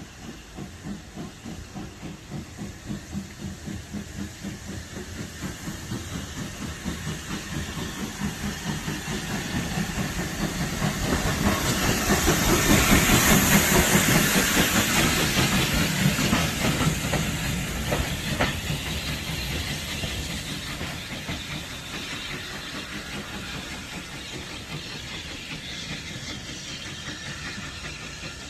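Steam tank locomotive working past, its exhaust chuffing in a steady rhythm with a hiss of steam. It grows louder as it approaches, is loudest as it passes about halfway through, then fades as it draws away.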